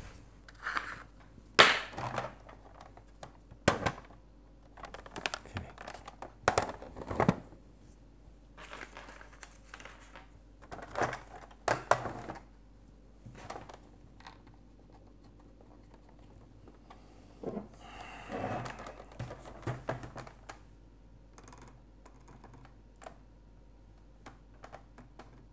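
Hard plastic body of a Fisher-Price Alpha Probe toy spaceship being handled and turned over on a wooden table: scattered clicks, knocks and rubbing, the sharpest knock about a second and a half in.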